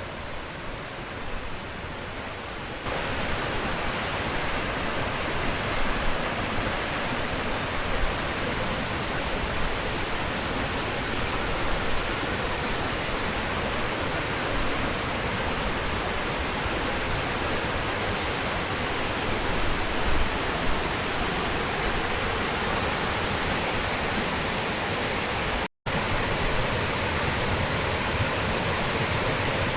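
Waterfall, a steady rush of falling water that gets louder about three seconds in and cuts out for an instant near the end.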